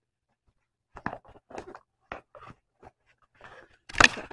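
A cardboard album box is handled on a wooden table: scattered light taps and rustles, then a sharp knock about four seconds in.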